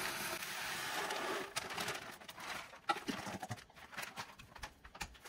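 Sago pearls pouring from a plastic bag into a glass jar: a steady hiss for about a second and a half, then scattered clicks and crinkles as the bag and jar are handled.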